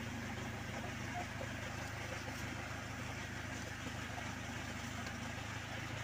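Backhoe's diesel engine running steadily at idle, a low even hum.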